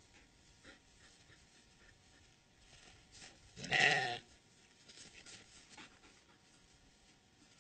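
A goat bleating once, a single call of about half a second a little past halfway through.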